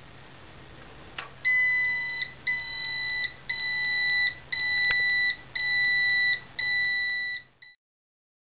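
Sound Protect security kit's alarm sensor going off: a click, then six loud, high-pitched electronic beeps about a second apart. The alarm has been triggered by pulling the sensor off the protected device.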